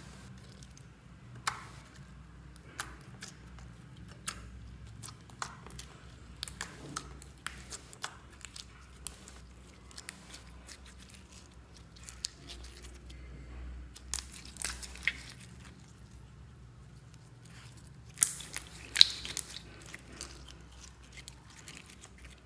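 Clear slime being kneaded and stretched by hand as blue pigment and glitter are worked in: irregular sticky pops and clicks. The pops come in louder clusters about two-thirds of the way through and again toward the end.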